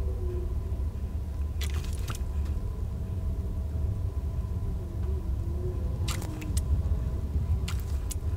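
Steady low rumble throughout, with three short clusters of clicks and taps from a plastic dye squeeze bottle being handled: about two seconds in, about six seconds in, and near the end.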